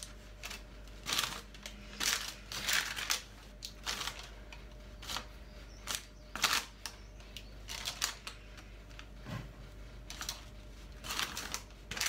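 Silicone spatula spreading thick cake batter in a parchment-lined baking tin: repeated short scrapes with rustling of the baking paper, irregular, about one stroke a second.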